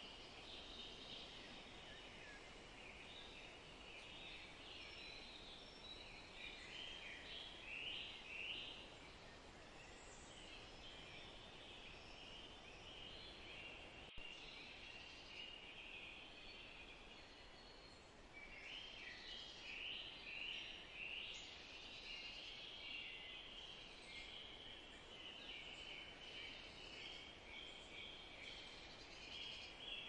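Faint songbirds chirping and twittering over a soft steady hiss, the calls busiest about a quarter of the way in and again past the middle. One faint click near the middle.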